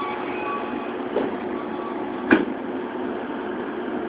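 Underground subway platform ambience: a steady hum and rumble, with a few short faint beeping tones near the start and a single sharp knock a little past halfway.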